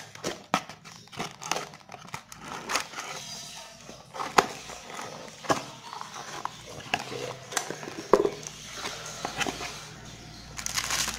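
Cardboard box being handled and its inner flaps opened: irregular taps, scrapes and rustles of cardboard, with a denser crinkling of plastic wrap starting near the end.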